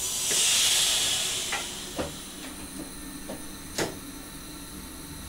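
Compressed air on an SGM Sprinter train venting in a short, loud hiss lasting about a second, followed by a few sharp clicks and knocks.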